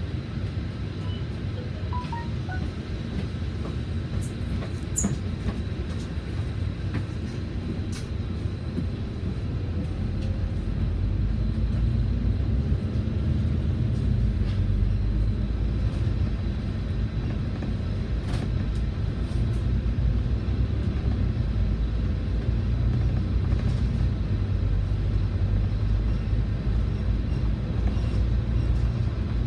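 Volvo B9TL double-decker bus heard from on board, its six-cylinder diesel engine running low and steady, then growing louder about ten seconds in as the bus pulls away and drives on, with road and body rumble.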